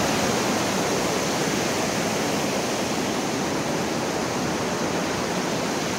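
Swollen river water rushing over a low concrete weir and churning below it, a steady even rush with no breaks.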